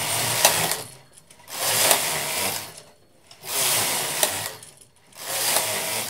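Carriage of a Brother 950i standard-gauge knitting machine being pushed across the needle bed, knitting four rows one after another. Each pass is a rasping, clattering sweep lasting about a second, with a sharp click, and short pauses come between passes as the carriage changes direction.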